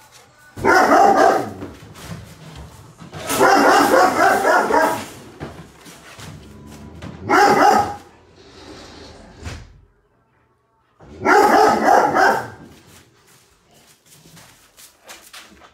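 A dog barking loudly in four bouts a few seconds apart, the second bout the longest at nearly two seconds.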